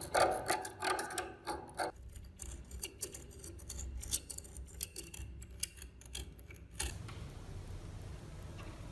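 Metal tools scraping and chipping crusted rust off a corroded iron tool: dense scraping for about two seconds, then scattered small scrapes and clicks that stop about seven seconds in, leaving a faint hiss.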